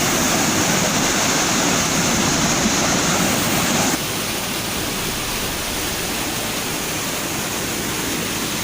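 Rushing floodwater: a steady, dense wash of noise, changing in tone and dropping slightly in level about four seconds in.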